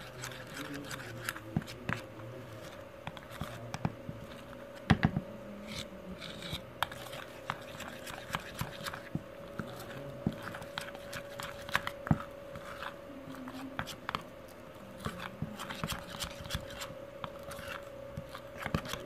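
Metal spoon stirring and scraping cocoa powder and milk into a thick paste in a bowl: irregular clicks and scrapes of the spoon against the bowl. A steady hum runs underneath.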